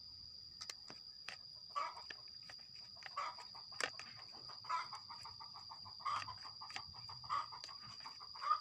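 A chicken clucking in short, evenly spaced calls, six in all, over a steady high-pitched whine, with a few sharp clicks in the first few seconds.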